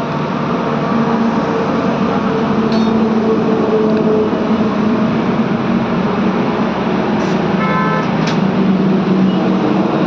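Welding on a metal tank: a steady hiss and hum, with a few faint clicks and a brief tone about eight seconds in.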